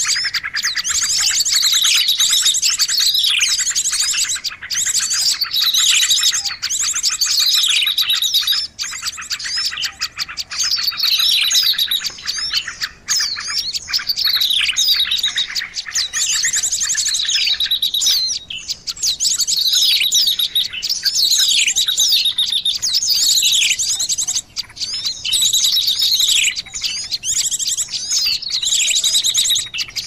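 Recorded small-songbird lure call (suara pikat) playing without pause: rapid high trills mixed with repeated falling whistled sweeps, meant to draw small wild birds in.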